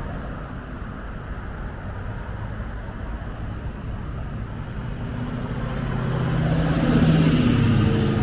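Street traffic: a steady rumble of cars, then a vehicle approaching and passing close near the end, growing louder, with its engine note falling as it goes by.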